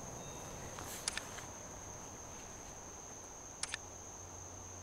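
A steady, high-pitched insect trill, one unbroken cricket-like tone, with a sharp double tick about a second in and again a couple of seconds later.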